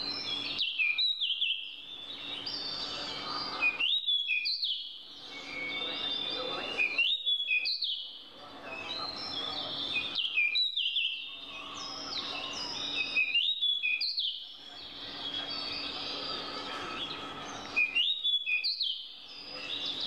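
A songbird repeats a short phrase of quick, clear whistled notes, about six times, roughly every three seconds, over a background chorus of other forest birds.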